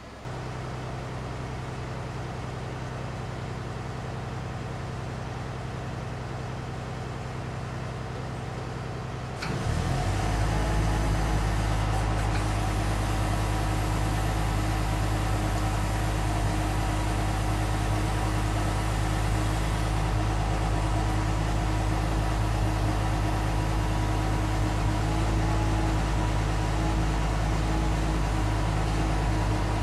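Engine of an aerial work platform running steadily, a low hum that steps up louder about ten seconds in and then holds.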